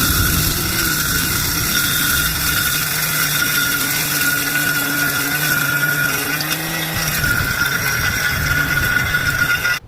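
A 2000 g electric dry spice grinder runs steadily while grinding sun-dried cocoyam to powder. It makes a loud, steady motor whine over a rushing noise, then cuts off suddenly near the end.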